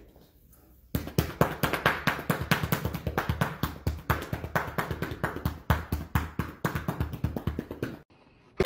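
Hands patting and slapping a big mastiff's body in a fast, uneven run of soft pats, several a second. It starts about a second in and stops shortly before the end.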